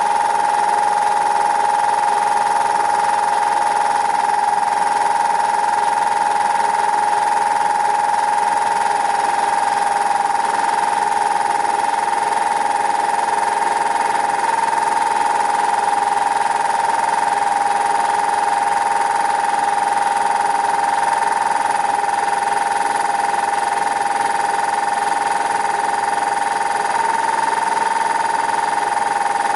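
Belt-driven Harbor Freight air compressor pump, freshly mounted on a quarter-inch steel plate, running steadily under power with a constant whine.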